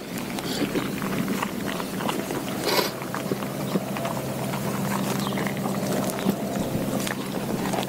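Doberman chewing a whole raw quail: irregular crunching and cracking of the small bird's bones, with sharp crackles scattered throughout, over a steady low hum.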